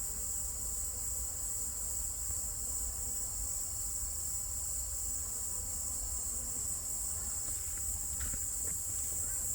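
Steady, high-pitched chirring of insects, unbroken throughout, over a low rumble.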